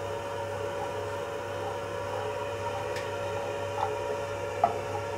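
Port wine reduction simmering in a frying pan over a gas flame, a steady hiss over a constant hum, with a few light knocks of a wooden spoon against the pan in the second half.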